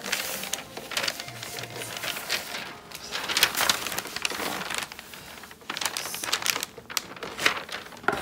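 Paper sewing pattern and fabric rustling and crinkling in irregular bursts as they are handled and laid back into place by hand.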